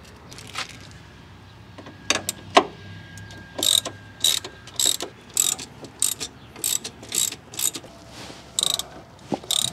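Hand ratchet with a socket backing out a rusty brake-line bracket bolt on a car's rear strut. A few metallic clicks and knocks come first, then from about three and a half seconds in a regular run of crisp pawl clicking, about two swings a second, as the loosened bolt turns out.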